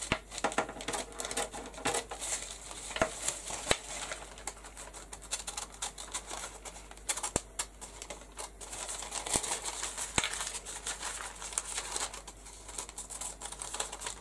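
Thin rice paper sheet being lifted and handled, rustling and crinkling, with scattered light clicks and a few sharper ticks.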